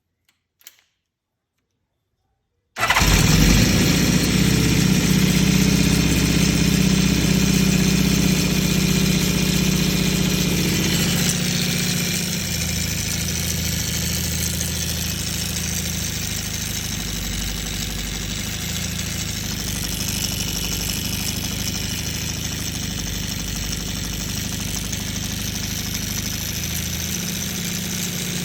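Honda CB550's air-cooled inline-four engine starting up about three seconds in and then idling, fast at first and settling to a lower, steady idle about eleven seconds in. It carries a rattle whose cause the owner doesn't know.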